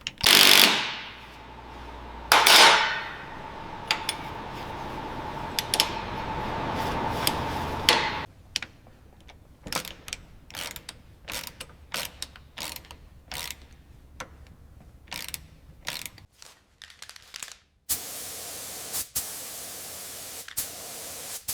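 Ratchet wrench clicking in short runs while bolts are worked on an engine. Two loud sudden bursts come in the first few seconds, followed by a steady running sound for a few seconds and another near the end.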